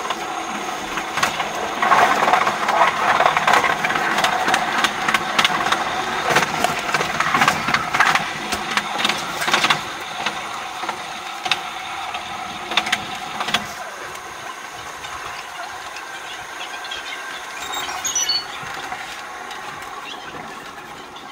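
Train running through station points, heard from the front cab: rapid clicking and rattling of the wheels over switches and rail joints. About fourteen seconds in the clicks thin out and the sound grows quieter, with a brief high squeal near the end.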